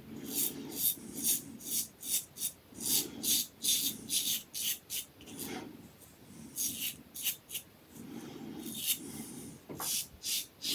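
Blackland Blackbird titanium safety razor with a Gillette Silver Blue blade scraping through shaving lather and stubble on the neck and cheek. It makes a quick series of short rasping strokes, about two to three a second, with a couple of brief pauses.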